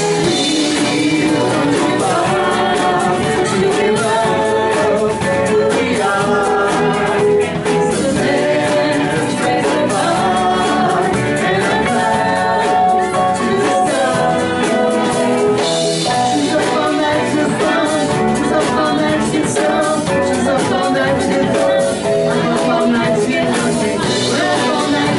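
Live band playing with sung vocals over electric guitars, keyboard and drum kit, a steady beat throughout.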